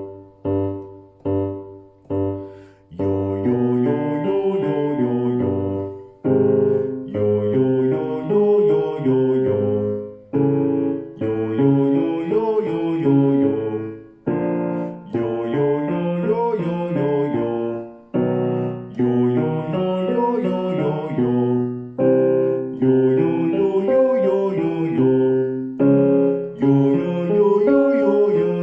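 Singing warm-up exercise: piano accompaniment with a voice singing a short pattern over it, repeated in phrases of about three to four seconds each. A few short piano chords open it.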